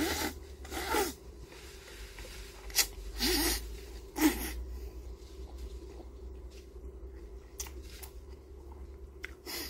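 Someone eating creamy carbonara noodles: a few short slurps and mouth sounds, some with a brief hummed "mm", in the first half, over a steady low hum.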